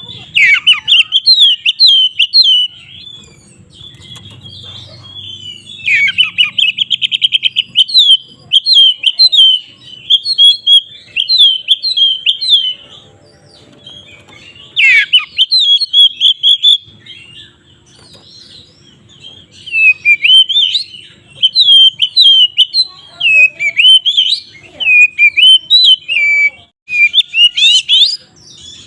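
Oriental magpie-robin (kacer) singing a loud, fast run of varied whistled and chattering phrases in the full 'ngeplong' style, with a rapid trill partway through and a couple of short pauses.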